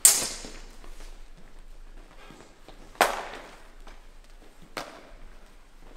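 Steel sparring swords clashing: a sharp clang as the blades meet, another about three seconds in, and a lighter one near the end, the first two ringing briefly.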